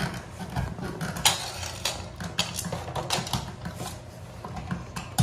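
Irregular clicks and light metallic clinks as a new electrical outlet, with its wires, is pushed back into the outlet box.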